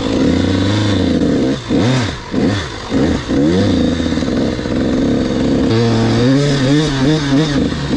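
Dirt bike engine running under the rider, heard up close. The throttle is blipped several times, with pitch quickly rising and falling about two seconds in, then it settles into a steadier, wavering pull near the end.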